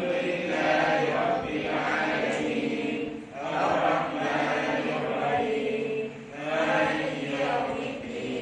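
Quran recitation: Arabic verses chanted melodically in long held phrases of about three seconds each, with short breaks for breath between them.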